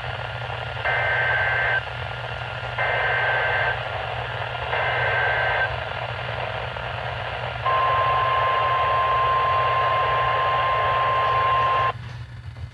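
An Emergency Alert System SAME header is sent as three short bursts of digital data noise, each about a second long and a second apart. It is followed by a single steady alert tone of about four seconds, the 1050 Hz NOAA Weather Radio warning tone, all over a hiss of radio static. The tone cuts off suddenly near the end.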